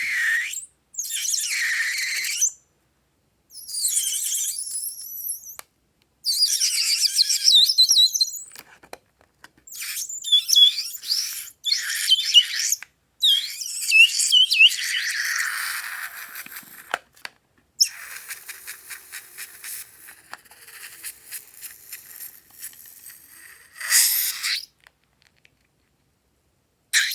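Clear glitter slime being squished and stretched by hand in short clips, one after another, with wet squelching and small squeaks. A run of fast, crackly little pops follows in the second half.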